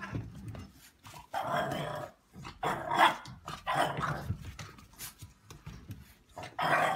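Bulldog growling and barking in about four short bursts.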